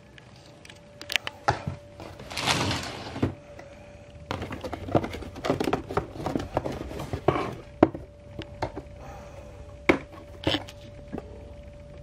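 Rummaging in a wooden drawer and pulling out a cardboard box: a scraping slide about two seconds in, then rustling, clicks and knocks as the box is handled, with a few single knocks near the end. A steady faint hum runs underneath.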